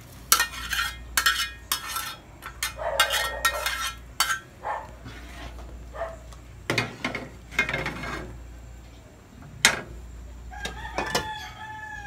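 Metal spatula scraping and clanking against a frying pan as sautéed seafood is tipped out into an aluminium pot of noodles, with several sharp clatters in the first few seconds. Near the end comes one loud clank as the aluminium lid goes onto the pot.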